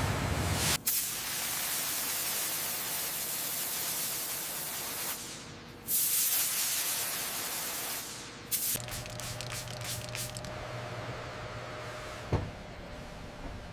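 Steady hissing spray that cuts off and starts again about six seconds in, then gives way after about nine seconds to a quieter low hum with a few sharp clicks.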